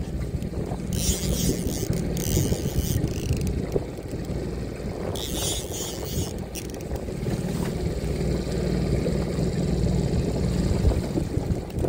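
Wind rumbling on the microphone in a small boat, with two high buzzing bursts from a fishing reel's drag, about a second in and again around five seconds in, as a hooked fish pulls line off the reel.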